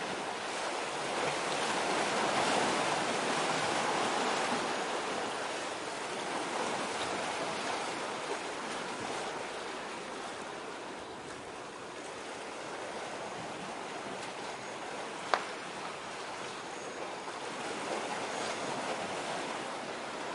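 Sea water washing and rushing, swelling and easing without any rhythm, with some wind mixed in. A single sharp click about fifteen seconds in.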